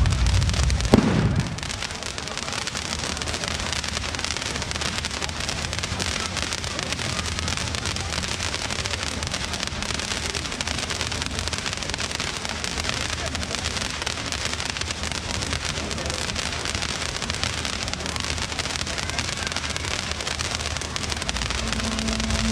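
Stage fireworks: a low rumble ends in a sharp bang about a second in, then a steady, dense crackling hiss.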